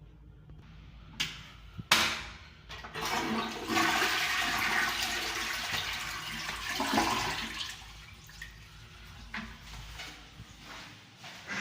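Briggs Edesa Venceramica round-bowl toilet being flushed: a sharp click of the handle about two seconds in, then a loud rush of water lasting about six seconds that dies down to a quieter running of water.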